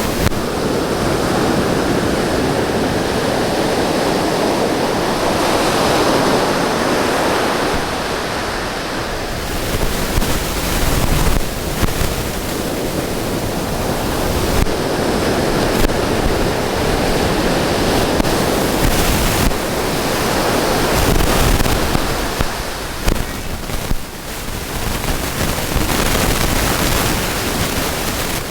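Ocean surf breaking and washing up the beach, a continuous rushing that swells and eases, with wind buffeting the microphone.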